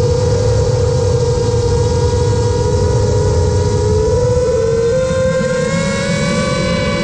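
FPV quadcopter's brushless motors and propellers whining steadily, rising slightly in pitch near the end, with wind rumbling over the onboard camera's microphone.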